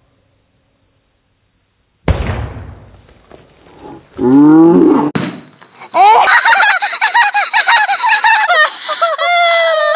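A whole pumpkin hits a concrete patio about two seconds in, a single heavy smash that dies away. Loud excited voices follow, squealing and whooping, with one long held yell near the end.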